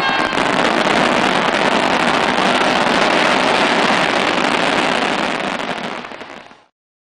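Fireworks going off in a dense, continuous stream of bangs that blur into one loud, steady noise. It fades over the last second or two and then cuts off abruptly.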